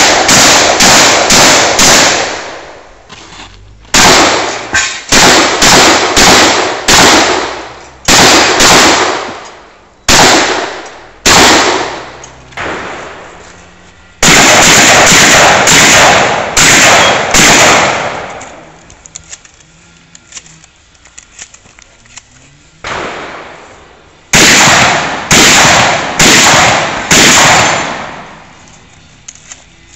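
12-gauge shotgun fired in rapid strings of very loud shots, about two shots a second within each string, with short pauses between strings and a longer lull a little past the middle.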